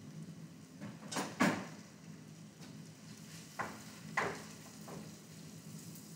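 A metal utensil clinking and scraping against a stainless steel saucepan as minced beef is stirred to brown, a handful of sharp knocks, the loudest about a second and a half in. A steady low hum runs underneath.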